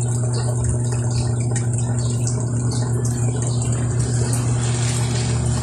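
A motor running steadily with a low, even hum that does not change.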